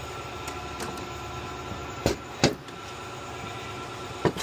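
A few sharp clicks and knocks of Ford 10-speed transmission clutch parts being handled during teardown, the two loudest about two seconds in, over a steady background hum.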